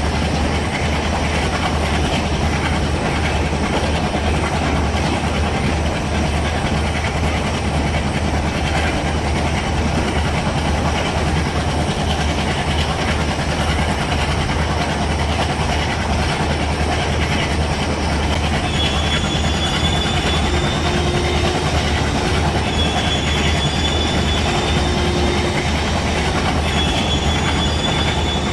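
WDM-3D diesel-electric locomotive running with its train, a steady low engine drone under rolling noise. From about two-thirds of the way in, short thin high squeals come and go several times.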